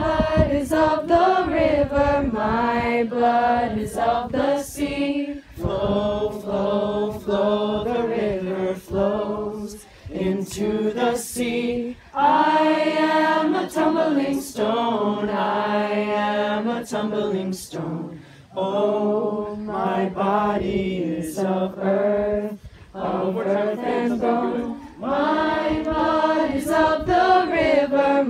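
A group of voices singing together without instruments, a chant in sung phrases with short breaks between them, and sharp percussive hits here and there.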